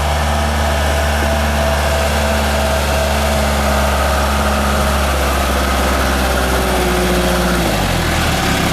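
1990 410C backhoe's diesel engine running at a steady speed, its pitch dropping as the engine slows near the end.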